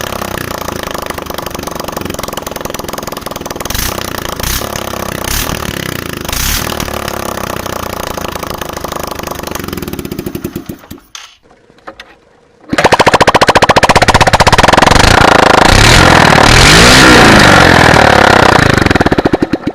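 Single-cylinder 125cc Suzuki Slingshot engine running with the silencer removed, so the open exhaust is heard raw, with a few sharp pops in the first several seconds. About ten seconds in the firing slows and the sound drops almost to nothing. It comes back very loud, with the revs rising and falling.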